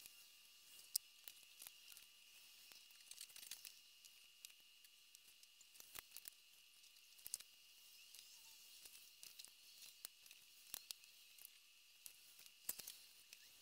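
Near silence broken by faint, irregular clicks and scratches of a pencil and plastic ruler working on paper taped against a window pane, over a faint steady high tone.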